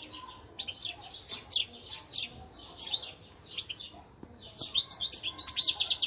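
Caged finches chirping and twittering in quick, high notes, breaking into a dense, louder run of fast twitters about four and a half seconds in.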